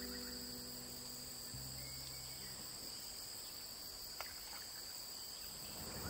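Insect chorus buzzing steadily at two high pitches. The last notes of background music fade out in the first two seconds, and a single faint click comes about four seconds in.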